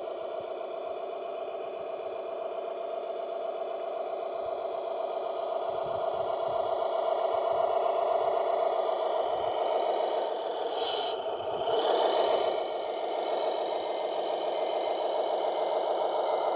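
Radio-controlled model construction vehicle's drive running with a steady buzzing whine, getting somewhat louder after about five seconds. A short burst of scraping noise comes about eleven seconds in.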